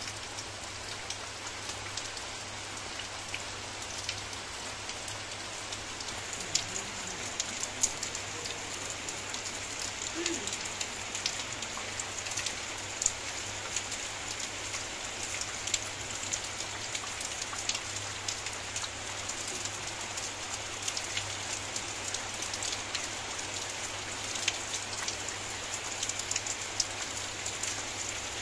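Steady rain falling on wet paving and garden foliage, with many sharp drops striking close by.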